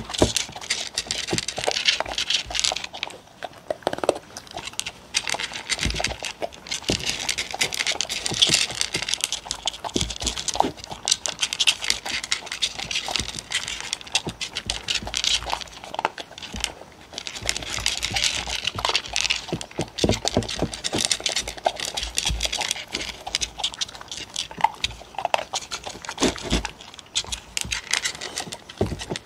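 Two dogs eating dry kibble from wooden bowls: steady crunching and chewing, with rapid clicks of teeth and kibble against the bowls, picked up by a close microphone.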